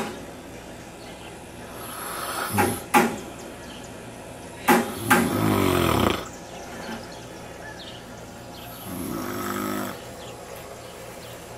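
A sleeping man snoring: a few separate snores with pauses between, two of them starting with a short sharp catch, and the longest about five seconds in.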